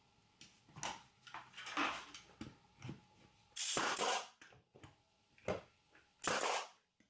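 Pieces of a plywood box being handled and knocked together during assembly: a run of short knocks and clatters, then two louder, sharper noises that start suddenly, about two and a half seconds apart.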